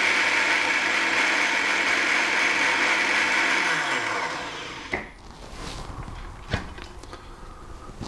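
Countertop glass jug blender running steadily as it mixes hot cream and milk into beaten eggs and sugar, then switched off about three seconds in, its motor falling in pitch as it winds down. A few light knocks follow as the lid is lifted off.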